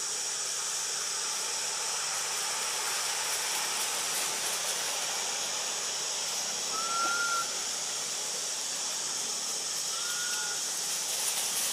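Steady high-pitched hiss of forest ambience, with two short whistled calls, about seven and ten seconds in.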